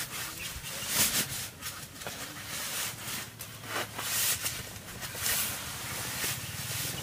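Nylon rustling in irregular bursts as a Blackdog sleeping bag in its strapped compression sack is handled, unstrapped and pulled open.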